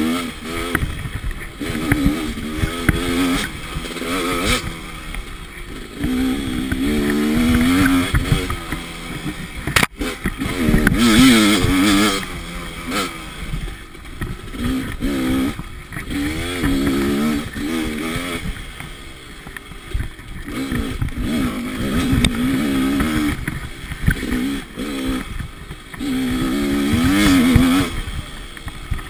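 Dirt bike engine under way on a rough trail, its revs rising and falling over and over as the throttle is opened and closed. Short clattering knocks from the bike jolting over bumps run through it.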